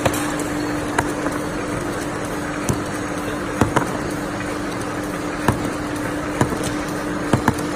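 Bouillon cube machine running with a steady hum, with light clicks and knocks at uneven intervals as cubes drop from its chute into a cardboard box.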